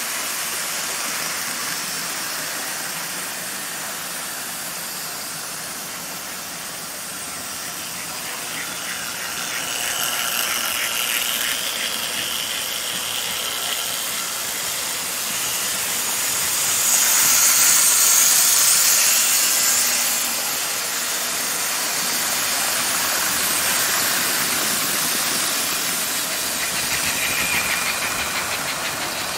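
Several Gilbert American Flyer HO model trains running on a layout: a steady whir of small electric motors and the rolling of wheels on track. It is loudest a little past halfway.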